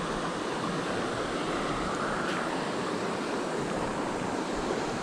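Steady rush of a rocky mountain stream flowing over stones and through a riffle.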